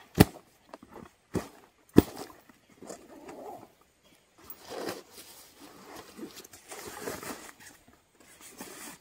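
Backpack and stuff-sack fabric rustling as straps are undone and the bag is handled, with two sharp clicks about two seconds apart near the start.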